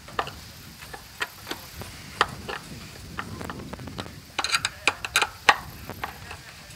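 Hand screwdriver turning a screw through an anchor mount bracket into a boat deck: irregular small clicks and ticks, with a quick run of sharper clicks about four and a half to five and a half seconds in.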